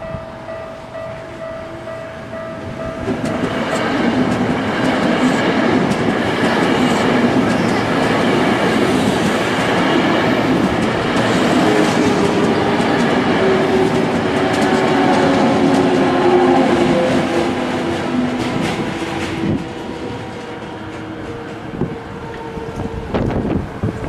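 A level-crossing bell ringing with a repeating tone, then a Toei 5300 series train passing slowly over the crossing from about three seconds in. Its wheels run loudly over the rails and its motors whine with slowly gliding pitch, and the noise eases after about nineteen seconds.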